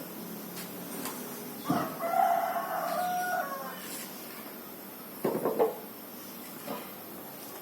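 A rooster crowing once, a single long call of nearly two seconds starting about two seconds in, followed by a shorter sharp sound about five seconds in.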